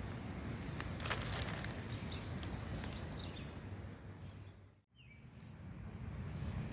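Outdoor ambience on a spring walk: a steady hiss and low rumble with a few short bird chirps and light steps. It fades out and comes back in just before five seconds.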